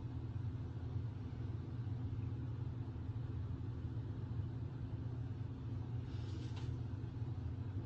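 A steady low mechanical hum, unchanging throughout, with a faint brief rustle about six seconds in.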